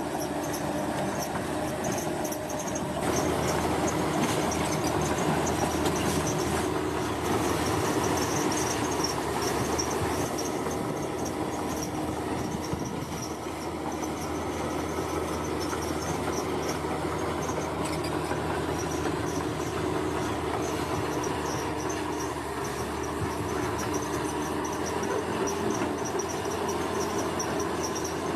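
Diesel engine of heavy construction machinery running steadily, getting louder about three seconds in, with insects chirring in a high, pulsing band.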